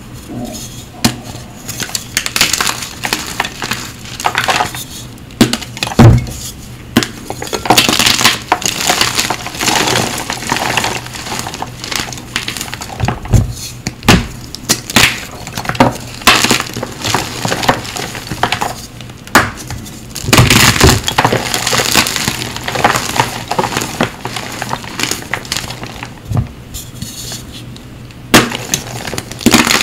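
Blocks of Cap gym chalk crushed and snapped between bare hands: irregular dry crunching and crackling with sharp snaps, coming in dense clusters with short lulls.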